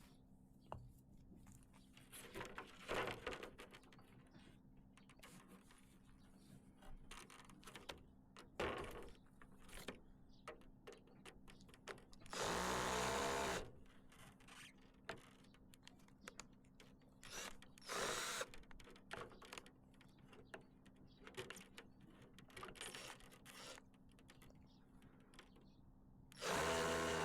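Power drill run in short bursts, the longest about a second and a half, with a whining run starting near the end. Scattered light knocks from handling between the runs.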